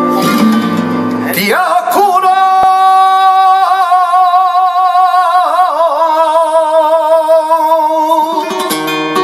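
A flamenco guitar plays, then about a second and a half in a male flamenco singer opens the tangos with one long, wavering held note of about six seconds. The guitar comes back in near the end.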